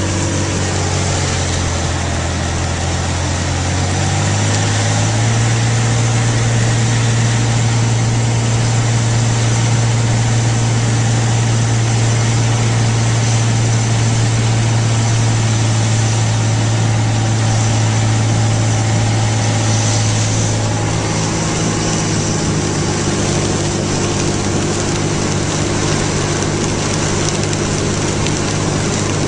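Car engine and road noise while driving. The engine note rises about four seconds in and eases off around twenty-one seconds.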